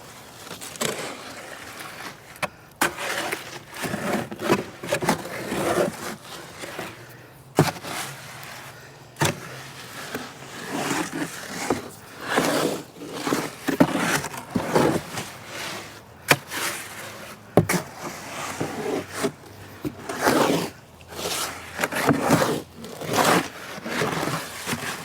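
Concrete being mixed by hand in a large square wheelbarrow: repeated scraping strokes through the wet mix, with a few sharp knocks of the tool against the wheelbarrow.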